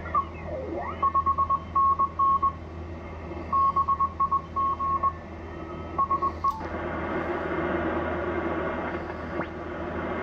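Morse code (CW) signal from a Yaesu FTdx1200 HF transceiver's speaker: a tone of about 1 kHz keyed on and off in dots and dashes over band hiss. About six and a half seconds in, a click, and the keying gives way to louder band static as the radio is switched from the 40 m band to the 80 m band.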